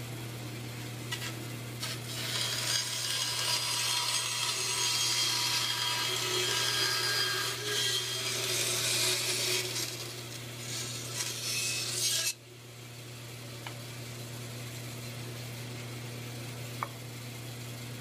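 Bandsaw running with a steady motor hum while its blade cuts a curve through a wood board, a loud hissing rasp. About twelve seconds in the cutting noise stops abruptly as the circle is cut free, and the saw runs on unloaded.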